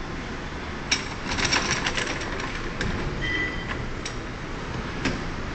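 Metal clicks and a short run of rattling as the handle frame and cutter bar of a two-man tea harvester are handled and fitted, over steady background noise. A few single clicks follow, and a brief high chirp sounds about three seconds in.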